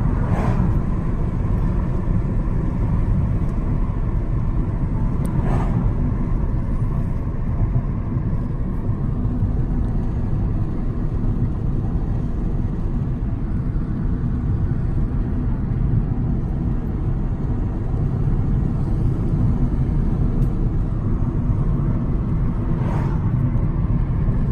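Steady low rumble of a car driving along a paved road, heard from inside the cabin: engine and tyre noise at an even cruising pace.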